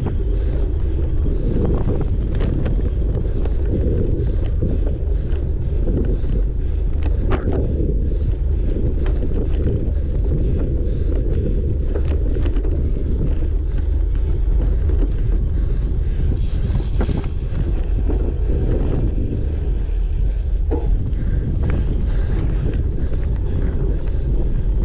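Wind buffeting the microphone of a camera on a cyclocross bike ridden at race speed, a loud steady low rumble, with a few sharp clicks and knocks from the bike over rough ground.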